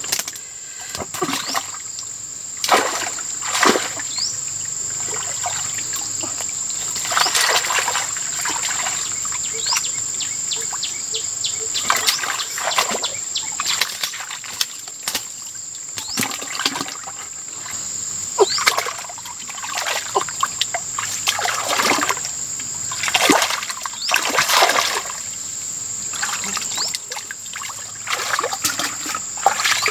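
Hands splashing and groping in shallow muddy water to catch fish, with irregular splashes and trickles of water running off the hands. A steady high thin whine runs underneath.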